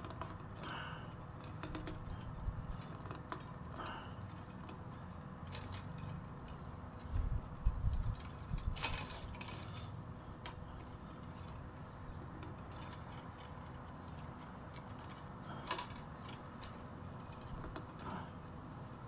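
Thin bamboo strips clicking and rustling as they are woven over and under by hand, with irregular light clicks and taps and a few dull low knocks about seven to eight seconds in.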